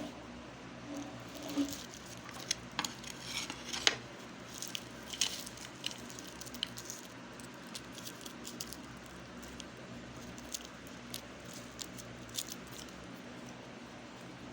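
Meat grinder crushing hard-candy lollipops: irregular sharp cracks and crunches, frequent in the first few seconds and sparser later, over a faint steady low hum.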